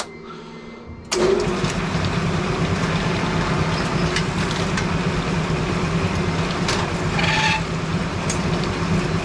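A Brunswick bowling pinsetter is switched on about a second in, and its electric drive motor and gearbox run steadily with a low hum and scattered clanks and knocks from the mechanism as it cycles back toward its zero position. There is a brief squeal about seven seconds in.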